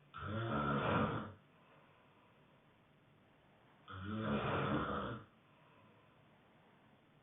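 A sleeping person snoring: two loud snores, each a little over a second long, about four seconds apart.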